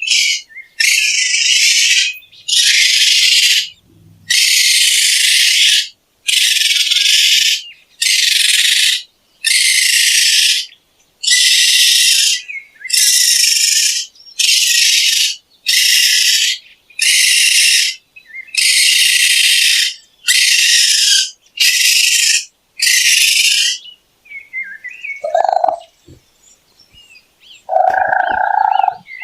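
Raccoon calls: a run of about fifteen harsh, noisy cries, each about a second long and evenly spaced. Near the end come a few shorter, lower calls with a clear pitch.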